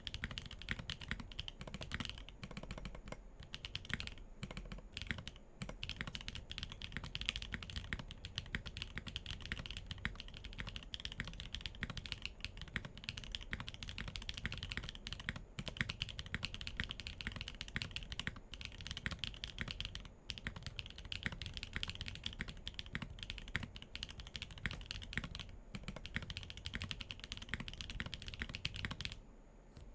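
Continuous fast typing on a Weikav Lucky65 V2 mechanical keyboard built with MMD Holy Panda tactile switches, a carbon fibre plate and no foams. The typing stops about a second before the end.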